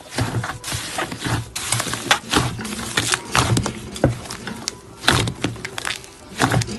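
Slime being squished and pressed by hand, making dense, irregular sticky pops and crackles.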